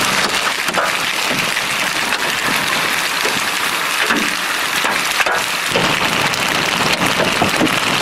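Heavy rain mixed with hail beating down on a road and grass verge: a steady, dense downpour hiss with many scattered sharp ticks of hailstones striking.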